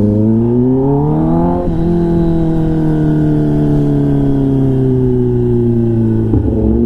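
Kawasaki ZX-10R inline-four with an SC-Project exhaust, on the move: the engine note climbs for under two seconds, drops suddenly with a gear change, then sinks slowly as the bike eases off, with a short change in the note near the end.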